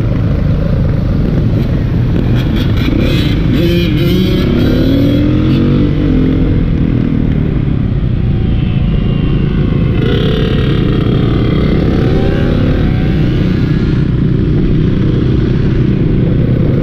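Dirt bike engine running steadily under the rider, mixed with the engines of other motorcycles and sport ATVs riding alongside. Engines rev up and down twice, about three seconds in and again about ten seconds in.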